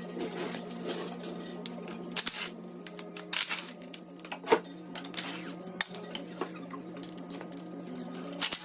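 Metal tools and engine parts clinking and clanking during an engine teardown, a string of sharp irregular clanks over a steady low hum.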